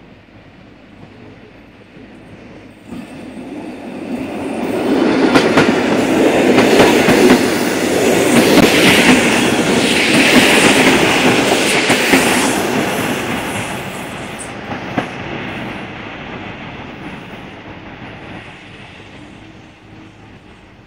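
EN57 electric multiple unit passing close by, its wheels clattering over the rail joints. The noise builds over a few seconds, is loudest as the carriages go past, then fades away.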